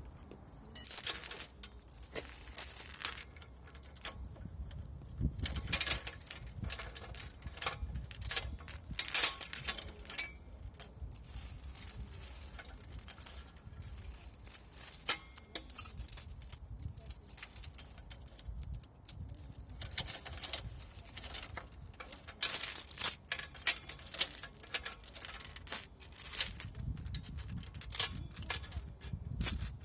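Irregular metallic clinks, taps and knocks of hand tools against steel suspension parts.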